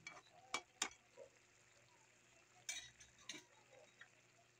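A cooking spoon clicking against the wok as the simmering fish-and-black-bean sauce is stirred: three light taps in the first second and two more around three seconds in, over a faint background.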